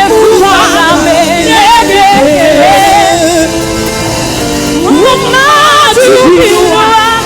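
Live gospel singing with band accompaniment: a lead voice sings wavering, ornamented lines over sustained chords. The voice pauses briefly about halfway through, then comes back in with a rising line.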